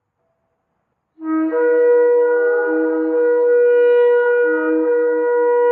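Shofar blown in one long, steady blast, starting about a second in: it opens on a low note and almost at once jumps up to a higher note, which is held with the low note wavering underneath.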